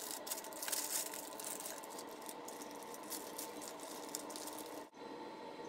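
Dry funfetti cake mix pouring from a plastic bag into a plastic mixing bowl: a soft rustling hiss with small crackles as the bag crinkles.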